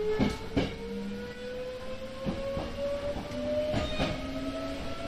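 Hankyu electric train heard from the cab, its motor whine rising steadily in pitch as it accelerates. The wheels clack over rail joints in quick pairs, three times.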